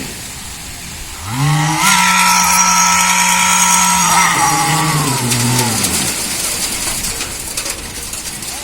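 An engine revving: it drops back at the start, then revs up sharply about a second and a half in, holds a steady high speed for a couple of seconds, and winds down again by about six seconds in.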